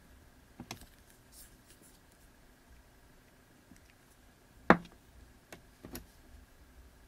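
Small clicks and knocks of components being handled, with one sharp knock about two-thirds through as a large electrolytic capacitor is set down on a wooden bench.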